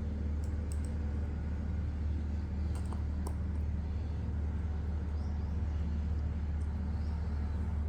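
Steady low droning hum, like a motor running, with a few faint light clicks about half a second in and again around three seconds in.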